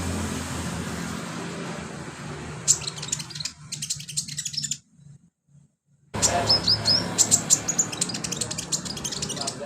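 Sunbird singing in fast bursts of high chips and trills, with a pause of about a second and a half in the middle. A low steady hum sits underneath, loudest in the first few seconds.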